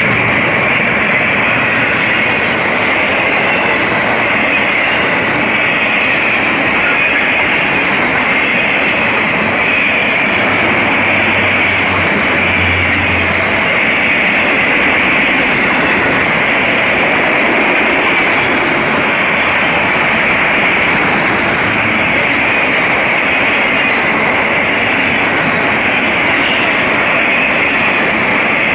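Long freight train of autorack cars rolling past at speed: a steady, loud rush of steel wheels on the rails.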